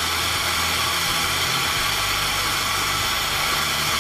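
Gas torch flame hissing steadily as it heats a copper pipe fitting for soldering, with the solder melting and being drawn into the joint.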